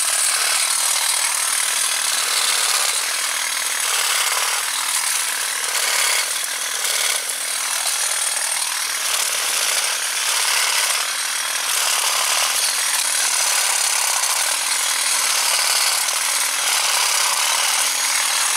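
A STIHL hedge trimmer running continuously, its reciprocating blades cutting through spent raspberry canes close to the ground. A steady buzzing hum is broken many times by short dips as stems are cut.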